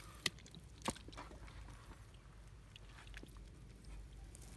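Metal bowl scooping and sloshing muddy water out of a hole in wet clay, with two sharp clicks in the first second.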